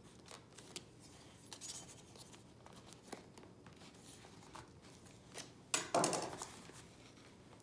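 Paper handling: soft rustling and small taps as a marbled endpaper is pressed into the fold of an old book, with a louder rustle and knock about six seconds in.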